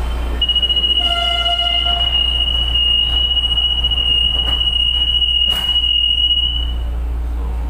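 Electronic warning tone inside a light-rail (LRT) train car, the door-closing alarm: one steady high tone for about six seconds, with a second, lower tone joining briefly about a second in. A single click sounds about five and a half seconds in.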